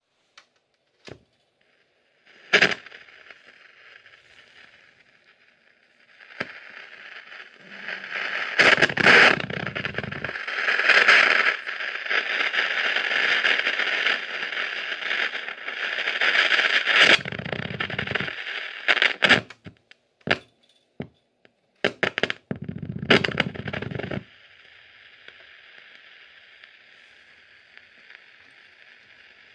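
Hiss and static from the speaker of a Hitachi TRK-5320E mono radio cassette recorder (about 1977). It swells and fades and at times gains a deeper rumble as the tone and volume knobs are turned. Sharp crackles and clicks break in, with a cluster about twenty seconds in.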